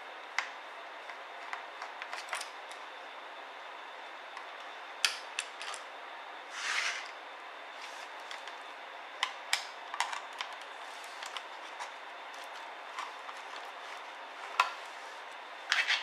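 Scattered small clicks and taps, with a brief scrape about seven seconds in, over a steady hiss: a screwdriver and fingers handling screws, the plastic underside and the metal-caddied SSD of a ThinkPad X301 laptop as the drive is taken out.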